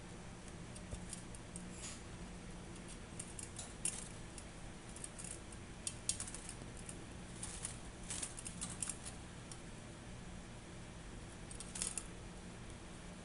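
A parrotlet bathing in a plastic water dish: short bursts of light splashing and wing-fluttering come and go, the longest cluster about eight seconds in, over a steady low hum.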